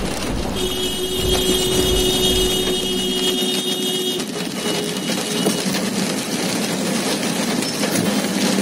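Steady road and engine noise inside a vehicle driving in the rain. From about half a second in to about four seconds in, a steady high-pitched tone sounds over it.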